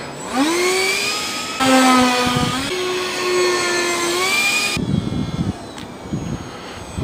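Electric ducted-fan whine of a radio-controlled F/A-18 model jet in flight. Its pitch rises sharply just after the start, then steps between steady pitches, and it cuts off about five seconds in. Low rumbling follows it.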